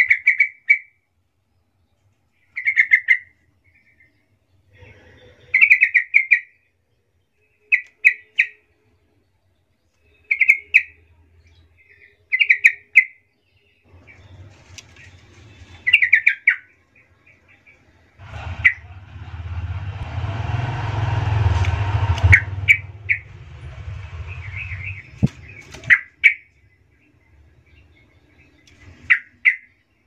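Yellow-vented bulbul (trucukan) giving short chirped phrases every two to three seconds. About midway a loud rushing noise with a deep rumble swells for several seconds and partly covers the calls.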